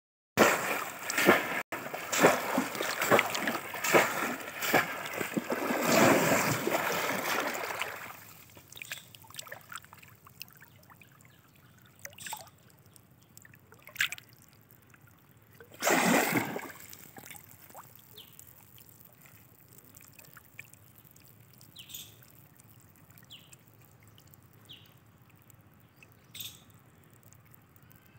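Shallow muddy water splashing hard and repeatedly as a bamboo polo fish trap is plunged down again and again for the first eight seconds or so. After that it goes much quieter, with small sloshes and one loud splash about sixteen seconds in as hands search the water inside the trap.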